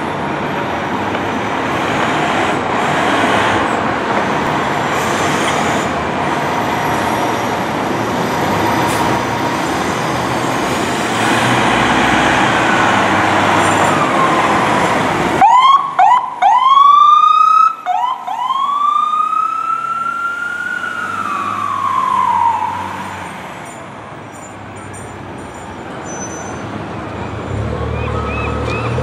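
Fire engine pulling out with a loud, steady rush of noise, then its Whelen electronic siren sounds: a run of quick yelps about halfway through, followed by one long rising-and-falling wail that fades as the truck moves away.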